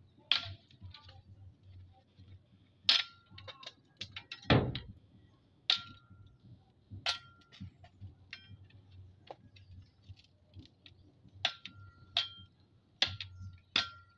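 Bolo knife chopping at a bamboo pole: about a dozen irregular sharp knocks, many with a brief metallic ring, and one heavier thud about four and a half seconds in.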